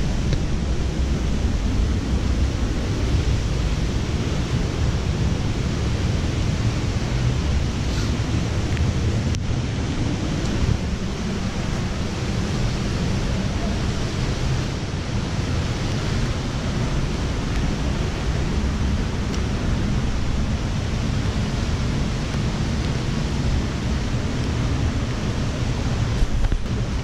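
A fast-flowing stream rushing steadily, with a low rumble of wind on the microphone.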